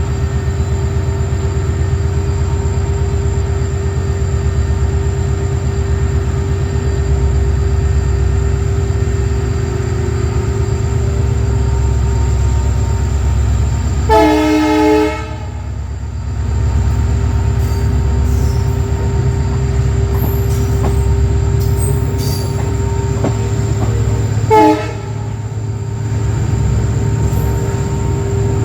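A WDG4 diesel locomotive and its train running, with a steady low rumble, rhythmic wheel clatter and a steady whine over it. The locomotive's horn sounds a chord for about a second about halfway through, and again briefly near the end.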